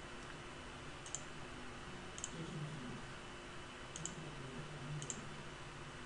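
Four single computer-mouse clicks, one to two seconds apart, over a faint steady hiss and low hum.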